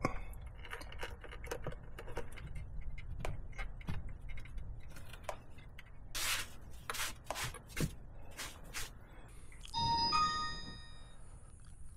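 Scattered light clicks and knocks of plastic and metal being handled as a dash camera is pushed into a motorcycle's chrome headlight cowl. About ten seconds in, a short electronic start-up chime of several tones: the Vantrue F1 motorcycle dash cam powering on with the ignition.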